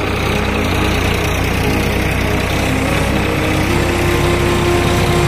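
Tractor engine running steadily under load as it drives a rotavator, whose spinning blades churn through the field soil.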